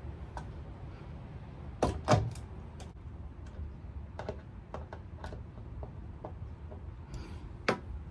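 Scattered light clicks and knocks of hardware being handled while fitting the acrylic livewell lid, with two sharp knocks about two seconds in and another near the end.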